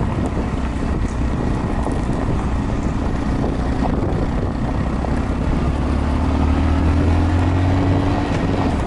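Honda Monkey 125's single-cylinder four-stroke engine running while riding, with wind buffeting the microphone. Over the second half the engine note rises slightly and gets a little louder, then eases near the end.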